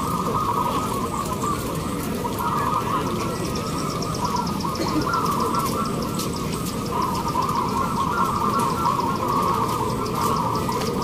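A chorus of zebra doves in contest cages cooing over one another without a break. A fast, high-pitched ticking starts about three seconds in and runs on over it.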